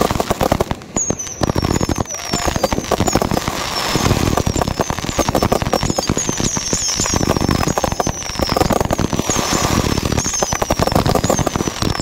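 Fireworks barrage firing in rapid succession: a dense, continuous run of bangs and crackling. From about a second in, short falling whistles repeat through it.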